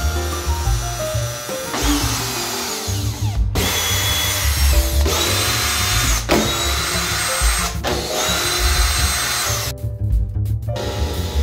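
Power drill running in repeated bursts of one to two seconds each, with a high whine, over background music.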